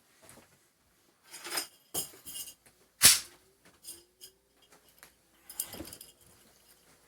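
Hands handling a tightly packaged box and small objects: scattered rustles and light clinks, with one sharp knock about three seconds in.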